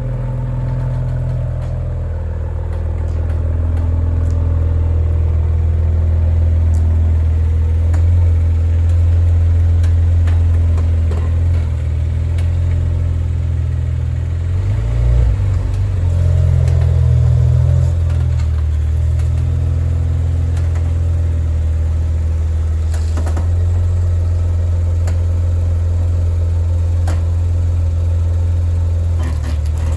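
Maserati Ghibli creeping at very low speed with the steering at full lock: a steady low engine hum with scattered sharp cracking, popping clicks. The owner does not know the cause of the cracking.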